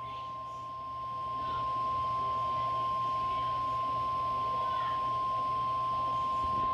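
Weather-radio warning alarm tone: one steady, high-pitched pure tone of about 1 kHz, the 1050 Hz alert that comes before a tornado warning is read.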